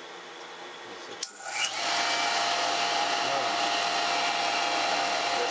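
Jet pump's pressure switch clicking closed about a second in, then the pump's electric motor starting and running steadily. The pump is cutting in at about 27 PSI as the water pressure runs down.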